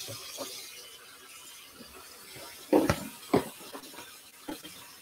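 Kitchen clatter: running tap water tails off in the first second, then two sharp clunks of kitchenware about half a second apart, and a light click later.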